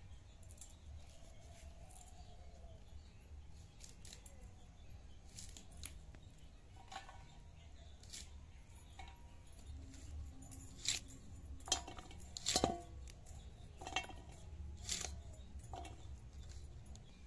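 Irregular crisp snaps and clicks of green onion stalks and small fish being cut on upright bonti blades, with a louder run of cuts in the second half.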